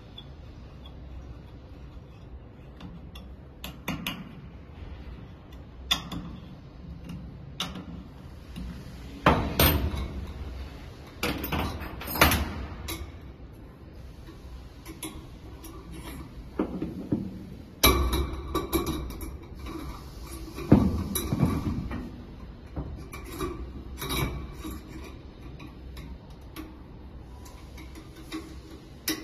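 Scattered metallic clicks, clinks and knocks of hand work on a steel test fixture: an Allen key tightening an electric iron's mounting bracket, then its power cord being clamped on metal rods. The louder knocks come in a few clusters through the middle.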